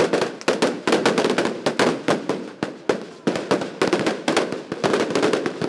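Firecrackers going off in rapid, irregular succession, several sharp bangs a second.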